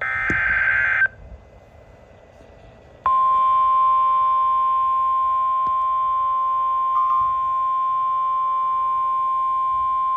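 NOAA Weather Radio emergency alert received over the air: the end of a SAME digital header, a burst of rapid data tones lasting about a second, then faint radio hiss. About three seconds in, the Weather Radio warning alarm tone starts, a single steady tone that holds, signalling that a warning, here a severe thunderstorm warning, is about to be read.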